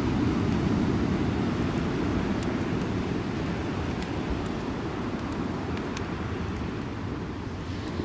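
Wood fire crackling, with scattered sharp pops from the burning logs, over a steady low rumble of wind on the microphone.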